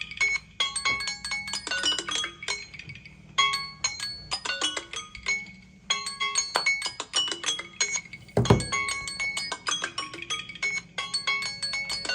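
Samsung Galaxy phone alarm tones: a melody of short ringing notes, overlapping, that repeats in phrases about every two and a half seconds with brief gaps between. A single low thump sounds about eight and a half seconds in.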